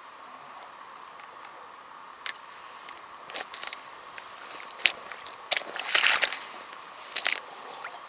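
A freshly hooked fish being swung in on the line and grabbed by hand: scattered clicks, rustles and wet squishy slaps, the loudest cluster as the fish is taken in hand in the second half.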